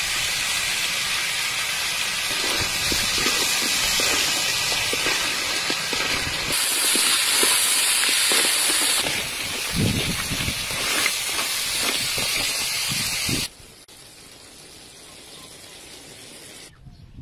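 Whole crabs sizzling loudly as they fry in hot oil in a metal pan, with a spatula scraping and clattering through the shells as they are stirred. The sizzle cuts off suddenly near the end, leaving only a faint hiss.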